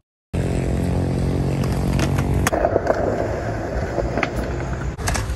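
Skateboard wheels rolling on concrete. About two and a half seconds in, a sharp clack as the board lands on a low metal rail, then a scraping slide along the rail for about two seconds.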